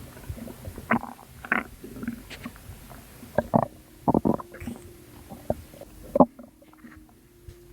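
Gurgling and squelching from a person's belly, in irregular short bursts with brief pauses. The sharpest squelch comes about six seconds in. The maker attributes the sounds to postpartum water weight.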